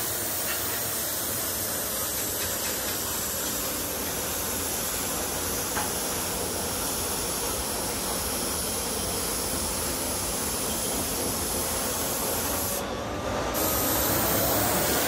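Compressed-air gravity-feed spray gun spraying paint: a steady hiss of air and atomised paint.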